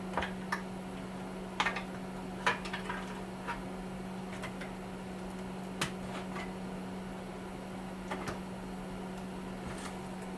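Scattered short clicks and knocks of metal parts and tools being handled while a small electric heater is taken apart, over a steady low hum.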